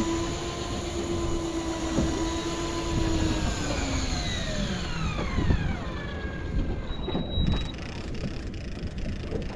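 Electric fishing reel's motor winding in line with a steady whine; about four seconds in the pitch falls away as the motor slows. It gives a short high beep about seven seconds in, followed by light clicking.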